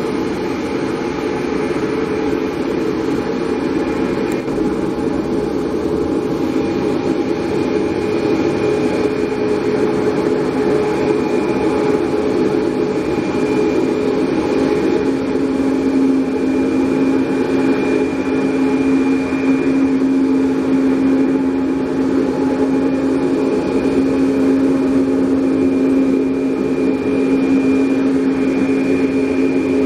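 Cessna Caravan's single turboprop engine running at low taxi power, a steady whine over a hum. A deeper steady drone comes in about halfway through.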